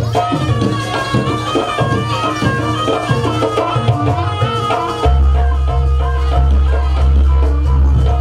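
Live Jaranan accompaniment music: traditional percussion and a stepping melody line played together, with a deep low tone that comes in about five seconds in and holds.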